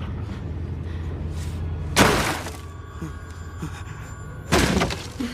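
Two loud crashes of wooden boards being smashed and splintering, about two and a half seconds apart, over a low steady drone.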